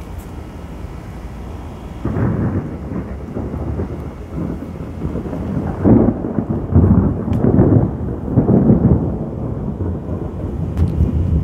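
Rolling thunder: a low rumble breaks in about two seconds in and swells in several surges, loudest around the middle, then rumbles on more quietly.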